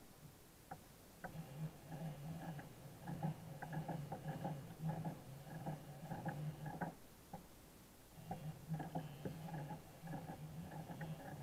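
Conventional baitcasting reel being cranked under the load of a hooked amberjack: a gritty gear whir with small clicks, in two long bouts with a short pause around seven seconds in.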